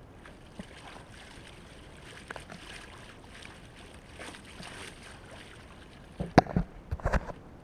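Water rushing and splashing along the bow of a Trinka 12 sailing dinghy under way, a steady hiss, with several sharp knocks near the end.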